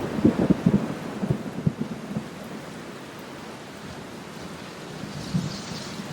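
Rain falling on window glass: a steady hiss of rain with a rapid, irregular patter of heavy drops tapping close by for the first two seconds or so, then thinning to the even hiss, with a brief flurry of drops near the end.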